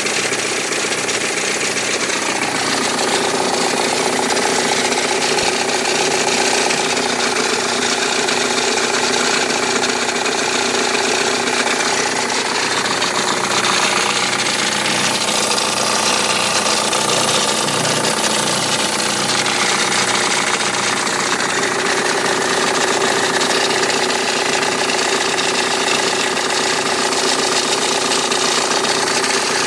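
Audi A4 B7 2.0 TDI four-cylinder turbodiesel running steadily at idle with an abnormal mechanical noise. The noise seems to come from near the timing belt and is still there with the alternator belt off; the owner suspects a failing water pump.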